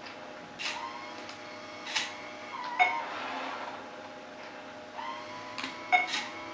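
Novag Robot Adversary chess computer's robotic arm moving over the board: small motors whir in short runs, with sharp clicks as the mechanism starts and stops, over a faint steady hum.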